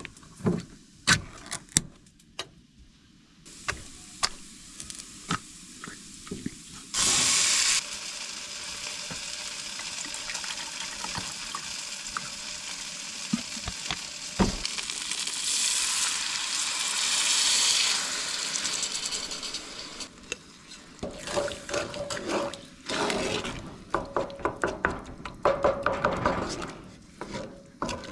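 Cooking in a pan on a camp stove. A few scattered clicks, then a steady hiss of liquid sizzling and simmering in the hot pan that builds for several seconds. Then a spoon stirring the pan with quick clicks and scrapes.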